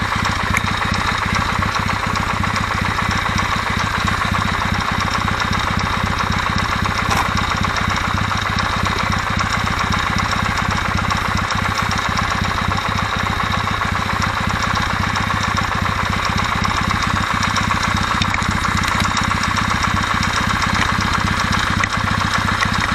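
Kawasaki W650 air-cooled parallel-twin engine idling hot, with a steady tok-tok-tok knock that comes only once the engine is warm. The owner puts it down, most likely, to the mesh of the driving and driven camshaft drive gears, having ruled out valve clearance.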